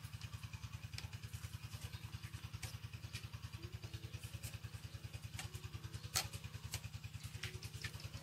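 Steady low mechanical throb, pulsing about ten times a second, with scattered light clicks, the loudest about six seconds in.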